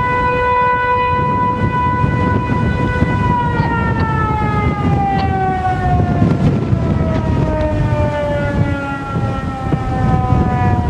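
Outdoor tornado warning siren sounding a steady tone, then winding down with its pitch falling slowly from about three seconds in.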